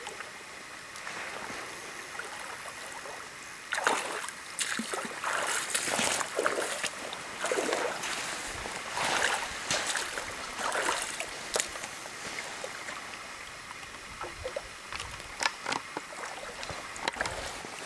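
Splashing in shallow lake water in irregular bursts, beginning suddenly about four seconds in, as a large hooked fish thrashes and is brought in at the shore by a man wading.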